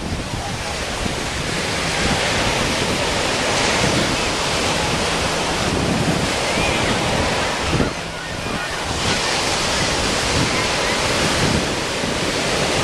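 Atlantic surf breaking and washing up the beach, a steady rushing wash with a short lull a little after the middle, and wind buffeting the microphone.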